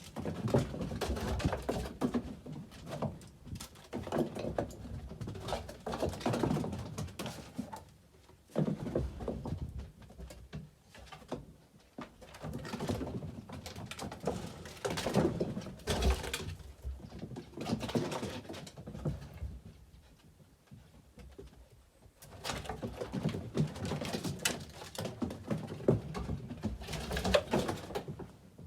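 Pet foxes running and playing: bursts of paws scrabbling and thumping, with low calls mixed in, broken by short lulls.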